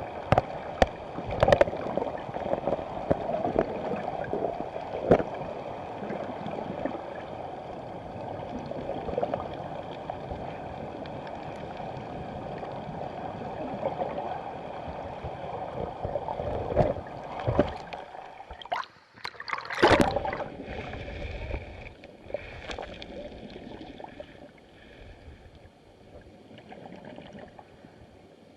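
Flowing river water heard underwater through the camera: a steady rushing, with several sharp knocks in the first few seconds and a louder splashing disturbance about twenty seconds in, after which it goes quieter.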